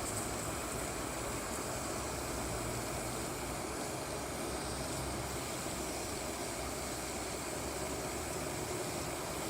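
A vehicle running steadily: a low rumble under an even hiss, with no change in pitch.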